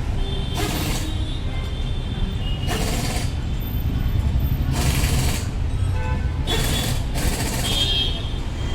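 Street traffic: a steady low rumble with a hissing surge about every two seconds.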